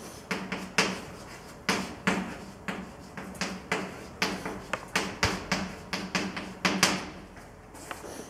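Chalk tapping and scratching on a blackboard as formulas are written: an irregular run of sharp taps, a few each second, that stops about a second before the end.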